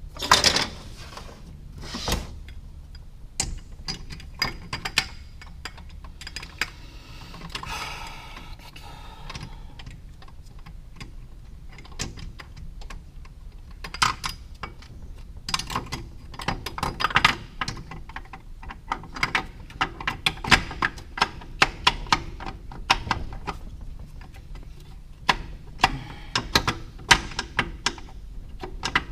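Metal transmission parts and hand tools clicking and knocking as they are handled and fitted together, in irregular clusters of sharp taps, with a brief scraping about seven seconds in.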